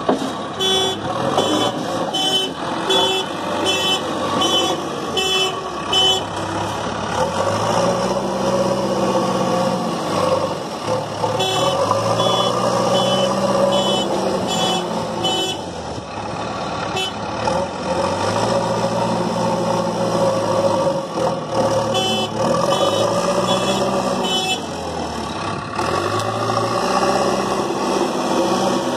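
JCB backhoe loader's diesel engine revving up and easing off again and again as the front bucket digs and lifts sand. It is joined three times by runs of steady high beeps, about two a second, from the machine's reversing alarm.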